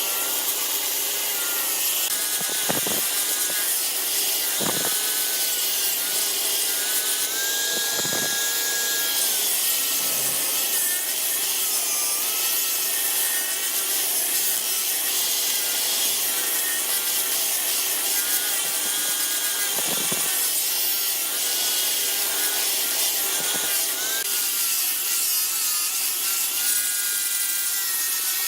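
Wood lathe running while a tool cuts the spinning wood: a steady hissing scrape, with a few short knocks.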